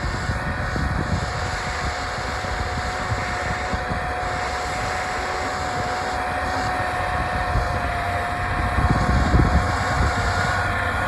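Case 220 tractor's engine running steadily under load while pulling a six-furrow plough through the soil: a steady whine over a low, uneven rumble.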